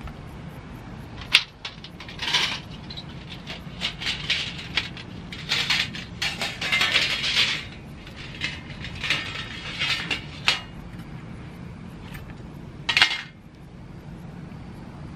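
Thin steel plates and wire rods of a folding camp stove clinking, rattling and scraping as they are handled and slotted together. There is a sharp click early, then scattered bursts of clatter, and one loud clink near the end.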